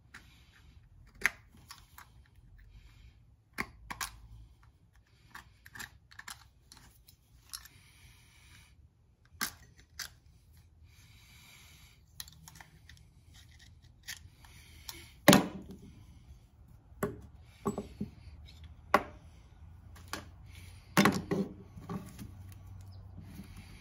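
Small engine parts being handled and set down on a wooden workbench: scattered clicks, rustles and taps, with a loud knock about two-thirds of the way through and a cluster of knocks near the end.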